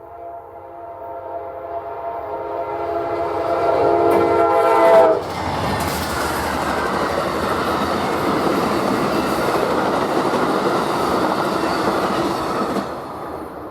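A locomotive's multi-chime air horn sounds as the train approaches, growing louder, and drops in pitch as it passes about five seconds in. The horn gives way to the loud rush of wheels on rail as the train goes by, which cuts off sharply near the end.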